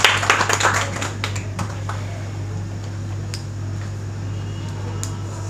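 An audience clapping, thinning out and dying away within the first two seconds. A steady low hum remains after it, with a few stray clicks.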